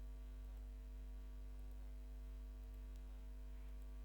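Steady electrical mains hum with a buzzy stack of overtones, picked up by the recording microphone.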